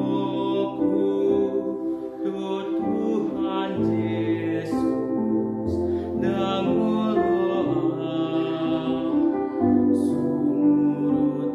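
A young man singing a solo song over an instrumental backing with held low notes.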